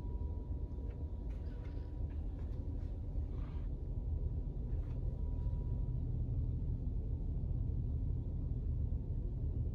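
Steady low rumble of indoor background noise, with a faint steady high tone that stops about six seconds in and a few faint rustles in the first half.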